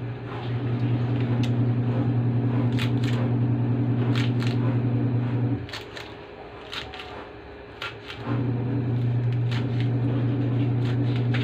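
Kitchen knife chopping pechay stems on a plastic cutting board: short, sharp chops at an uneven pace. Under them runs a loud steady low electrical hum that cuts out for about two and a half seconds midway and then comes back.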